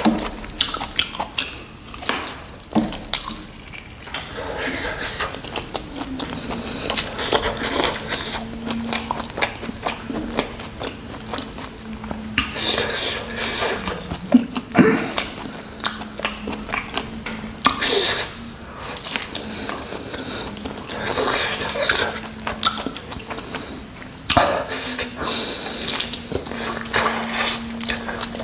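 Wet chewing and lip-smacking of a person eating spicy bone-in mutton with his hands: irregular runs of sticky clicks and squelches. A faint steady hum sits underneath from about six seconds in.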